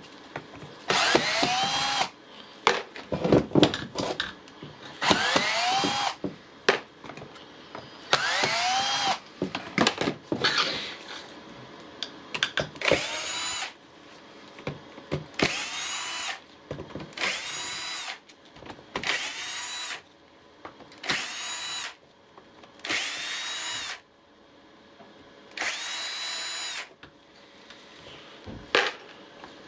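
Small electric motor of a cordless screwdriver or drill run in about ten short bursts, each rising quickly in pitch as it spins up and then holding steady for about a second. Clicks and handling of parts come between the runs.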